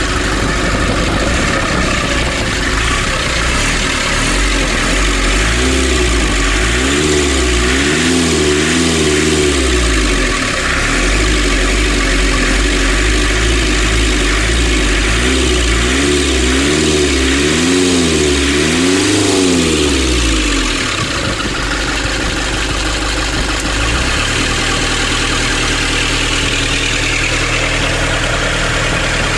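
Nissan Urvan van's diesel engine running, revved up and down several times in two sets of quick blips, then settling back to a steady idle. It runs on a diesel pump whose leaking bolt has just been replaced.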